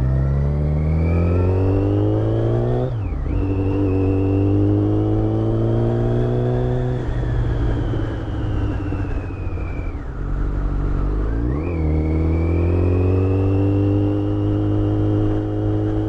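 2008 Yamaha FZ1's inline-four engine pulling under way. The revs climb, drop sharply about three seconds in, climb again, fall away roughly from seven to ten seconds, then pick up again near twelve seconds. A thin high whine rises and falls with the revs: the mystery noise that the rider hopes comes from failed clutch basket bearings.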